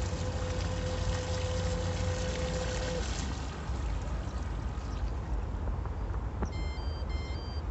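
Electric motors of an RC bait boat running with a steady whine over wind and water noise, cutting off about three seconds in as the autopilot brings the boat to its point and it coasts to a stop. Near the end, two short electronic beeps.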